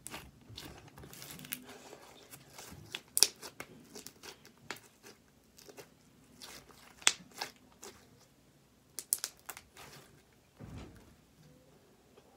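Slime being squeezed and pulled in the hands, giving irregular sharp clicks and crackles, with the loudest pops about three and seven seconds in.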